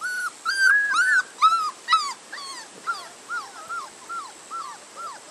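Six-week-old Labrador retriever puppies whining: a run of short, high whines, two or three a second, louder in the first two seconds and softer after.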